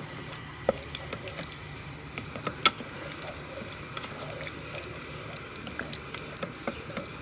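Spoon stirring a watery bean-seasoning mixture in a pressure cooker's inner pot, with scattered light clinks of the spoon against the pot and one sharper clink about two and a half seconds in, over a steady low hum.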